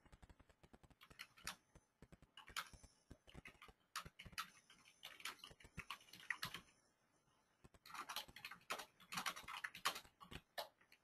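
Typing on a computer keyboard: faint, irregular keystroke clicks, with a pause of about a second a little past the middle.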